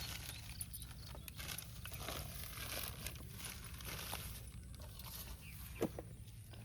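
Faint crinkling and rustling of a bag being handled, with scattered small clicks.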